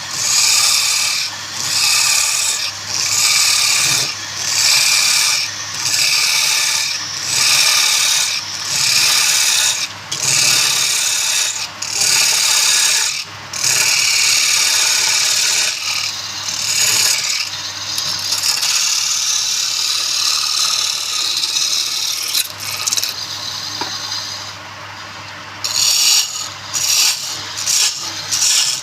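Wood spinning on a lathe being worked in regular back-and-forth strokes, each a hissing scrape, roughly one every three-quarters of a second over a steady low motor hum. Partway through the strokes merge into one continuous scrape and ease off, then come back quicker near the end.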